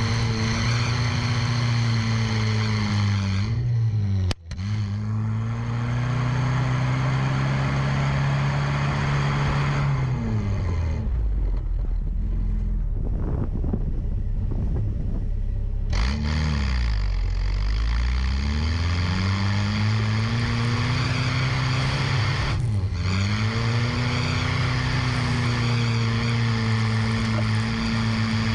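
Toyota 4x4 pickup's engine, heard close by the rear wheel, revving up and down as the truck pushes through deep snow. The revs drop to a low, labouring note about a third of the way in, then climb again. There is a brief break about four seconds in.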